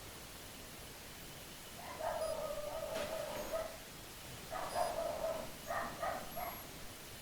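A dog giving drawn-out, whining calls: one long call of nearly two seconds, then a shorter one and two brief ones. A single click sounds during the first call.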